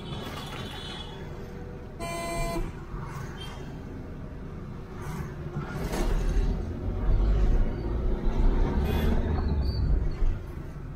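Cabin noise inside a 2013 Ford Figo diesel hatchback on the move: a steady low road-and-engine hum. A car horn toots briefly about two seconds in. The low rumble grows louder in the second half, with a few bumps.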